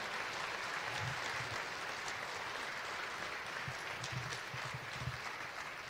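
A live audience applauding, the clapping slowly dying down.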